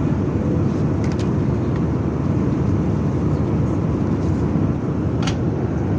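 Steady low roar of an airliner's jet engines and airflow heard inside the passenger cabin during the climb after takeoff. A couple of faint brief clicks sound over it.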